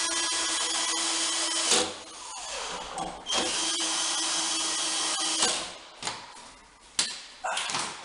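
Cordless drill-driver driving screws into wood in two runs of about two seconds each, its motor holding a steady pitch, followed by a few sharp knocks near the end.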